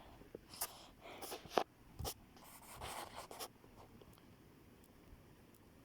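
A few short scratchy rustles and scrapes, like handling noise, over the first three seconds or so, then faint quiet.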